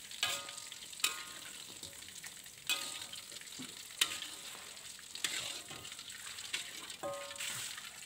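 Battered chicken frying in hot oil in a metal wok, a steady sizzle, while a perforated metal strainer scoops the pieces out to drain. The strainer knocks and scrapes against the wok several times, with a brief metallic ring.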